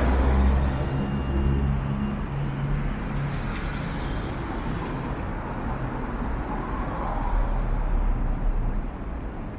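City street traffic: a motor vehicle's engine hums close by for the first couple of seconds over steady road noise, and another vehicle goes by, louder, shortly before the end.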